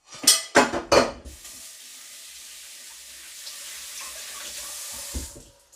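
A few sharp knocks, then a kitchen tap running steadily for about four seconds as a finger is rinsed under it, with a thump just before the water stops.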